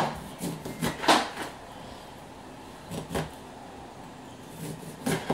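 A kitchen knife cutting through a lime and knocking on a wooden cutting board: several irregular knocks, with a pause of about a second and a half in the middle.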